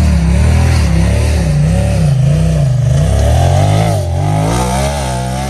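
Side-by-side UTV engine revving up and down over and over, about two swells a second, as on a low-speed crawl over rocks.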